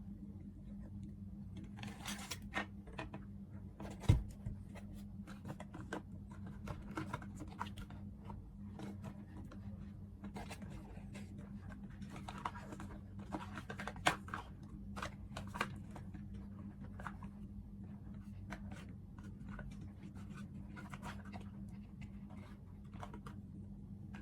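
Handling noise from working with a multimeter's test probes and a small battery: scattered clicks, scrapes and rustles, with a sharp knock about four seconds in and another sharp click about fourteen seconds in. A steady low hum runs underneath.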